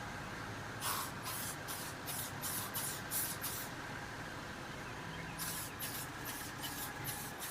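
OFF! Deep Woods Sportsman insect repellent being sprayed in quick short squirts, about three a second. There are two runs: about nine squirts, a pause of under two seconds, then about six more.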